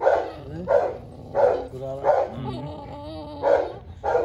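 A dog barking repeatedly, six sharp barks about two-thirds of a second apart, with a short break near the middle.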